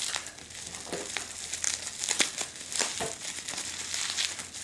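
Clear plastic wrapping on a small package crinkling and crackling as it is worked open by hand, with a few sharp clicks.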